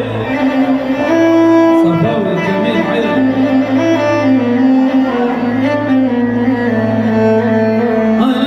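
Iraqi dabke wedding music, an instrumental passage: a melody of held notes with gliding pitch over a steady low drone.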